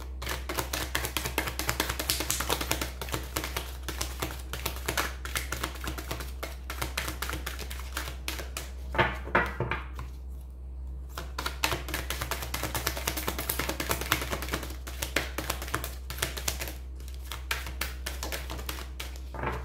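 A deck of tarot cards being shuffled by hand: a fast, dense run of soft card clicks and flicks, with a short pause about ten seconds in.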